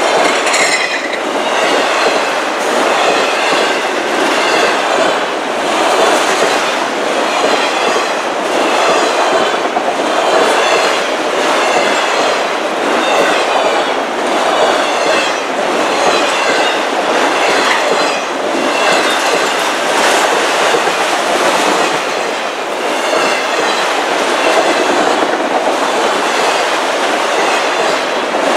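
Autorack freight cars rolling past close by: a steady clatter of steel wheels on the rails, with a high, wavering wheel squeal coming and going every second or two.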